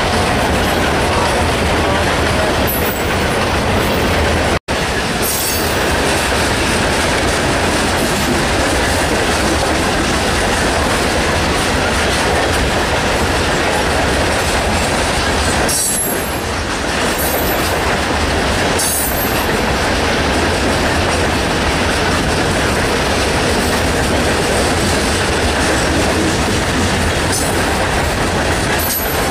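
Freight train coal cars rolling past at speed: a steady, loud rumble and rattle of steel wheels on rail. The sound drops out for an instant about four and a half seconds in.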